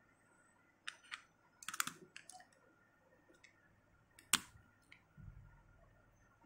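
AAA batteries being handled and pressed into the plastic battery compartment of a BPL Smart Oxy04 fingertip pulse oximeter: a series of small clicks and taps, the sharpest about four seconds in, followed by a soft low thump.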